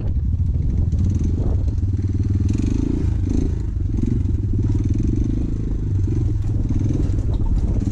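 Motorcycle engine running steadily while riding, with a few knocks and rattles from the bike over a rough track.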